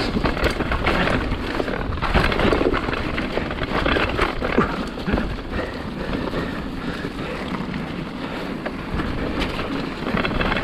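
Mountain bike descending a jump trail at speed: wind buffeting the camera microphone over the steady noise of tyres on dirt, with frequent knocks and rattles from the bike over the ground.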